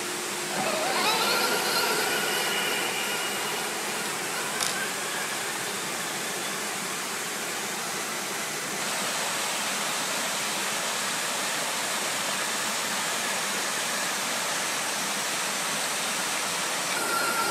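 Steady rushing noise, like running water or wind in the trees. In the first couple of seconds an electric RC crawler motor whines, rising in pitch, and there is a single sharp click about four and a half seconds in.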